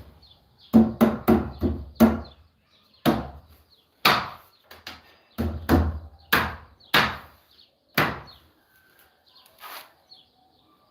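Repeated sharp blows on wood: a quick run of about five strikes, then slower single strikes about a second apart, stopping a little before the end.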